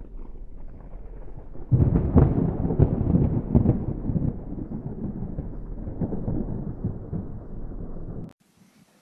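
Thunder: a low rumble that swells loud about two seconds in and rolls on with a few sharp cracks, then cuts off suddenly near the end.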